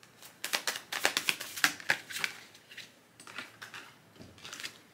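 A deck of tarot cards being shuffled by hand, a quick run of sharp card snaps in two bursts.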